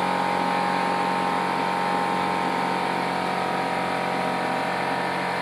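A motor-driven machine running steadily, a constant hum with a hiss over it that does not change.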